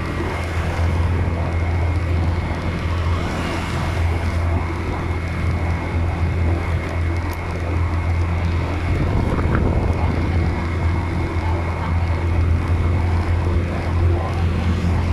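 Steady engine and road noise from a moving vehicle cruising along a road: a constant low drone with a thin, steady high whine over it.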